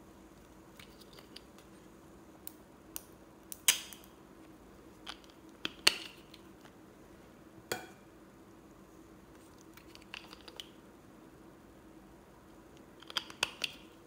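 Plastic cosmetic tubes handled by hand: scattered clicks and knocks as they are picked up and turned over, with a quick cluster of ticks near the end. A faint steady hum runs underneath.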